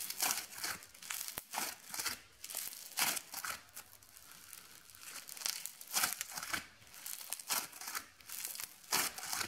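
Foam-bead slime (floam) being kneaded and squeezed by hand, the packed beads crackling and popping in irregular bursts.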